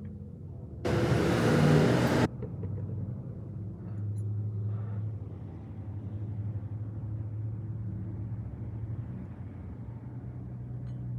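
Car engine running steadily at idle, after a loud burst of sound about a second in that lasts a little over a second.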